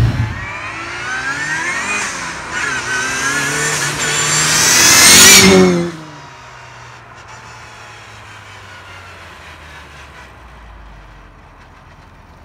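Turbocharged 1275 A-series engine of a classic Mini heard from inside the cabin, accelerating hard through the gears: the pitch climbs in about three pulls with a short break at each gear change, building to a loud rushing hiss. At about six seconds it cuts off abruptly to a faint steady hum.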